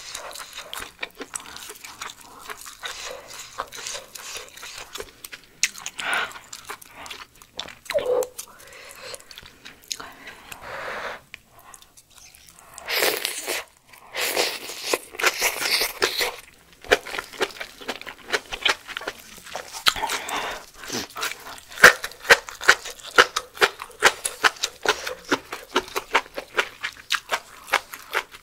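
Close-miked eating sounds: loud slurping of malatang noodles and broth from a spoon about 13 seconds in, followed by steady chewing with many quick wet, crunchy clicks.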